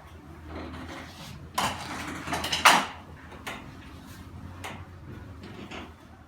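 Rustling and shifting of a person sitting up on a padded treatment table, loudest about two to three seconds in, followed by a few light clicks.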